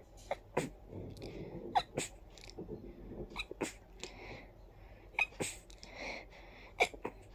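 A person stifling a rapid fit of sneezes: a series of short, sharp, held-in sneezes, several coming in quick pairs, with quick breaths drawn in between.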